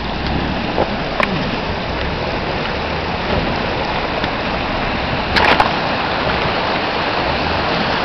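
Rushing water of a shallow, rocky mountain river, a steady even noise, with the low rumble of a Jeep Wrangler Rubicon driving through the stream underneath. A sharp knock comes about a second in, and a few more come just past the middle.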